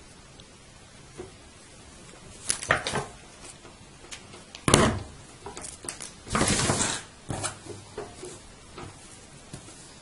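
Hands handling and rustling a black velvet turban on a table, with scattered rustles, a sharp knock about halfway through, and a longer rustle of about a second shortly after.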